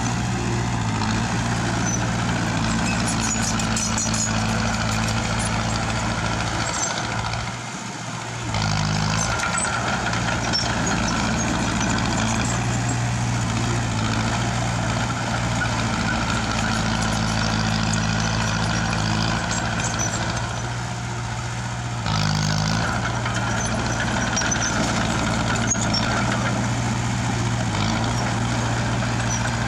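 Heavy diesel engine of earth-moving machinery running steadily, easing off briefly twice, about seven seconds in and again around twenty-one seconds in.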